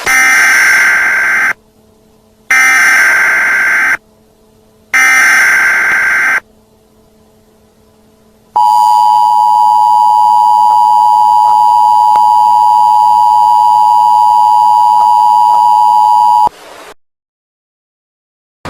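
Emergency Alert System tones: three harsh, screeching bursts of SAME header data, each about a second and a half long, then the EAS two-tone attention signal held steady for about eight seconds before it cuts off suddenly.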